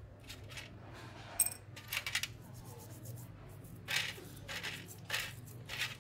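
Toothbrush scrubbing small carburetor parts in a shallow metal tray of petrol, in short scratchy strokes. About a second and a half in, a small metal part clinks sharply against the tray.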